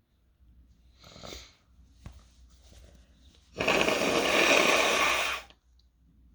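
A person's airways irritated by toasted chili: a short breath in about a second in, then a sudden, loud, forceful blast of air through the nose lasting about two seconds.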